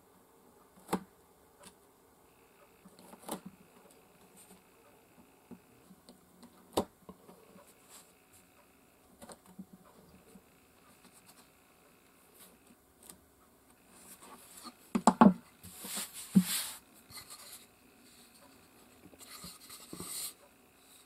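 Wide Japanese chisel paring and scraping the inside edge of a small wooden box frame, most likely Japanese magnolia (hō) wood: a few sharp clicks and taps at first, then a louder stretch of scraping and clicking a little past the middle, and a softer rubbing near the end.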